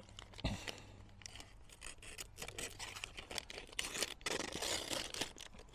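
Large main blade of a cheap Swiss Champ–style army knife slicing through a sheet of paper in a paper sharpness test: a run of papery slicing and rustling strokes, busiest just past the middle. The blade cuts the paper well, a sign of a sharp edge.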